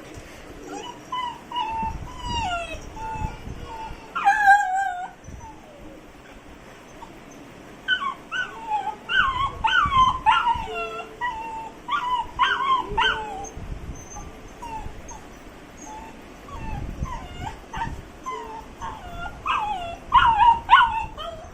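A pet dog whining and whimpering in high, wavering cries, in several bouts with pauses between, the loudest about four seconds in. It is whining at its owner leaving the house.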